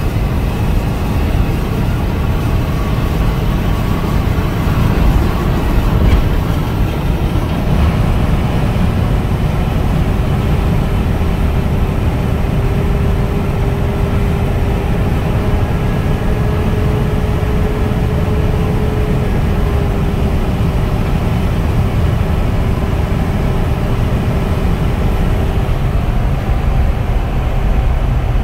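Steady road and engine noise inside a car cruising at highway speed, a low rumble. A faint steady hum joins about ten seconds in and fades out near the end.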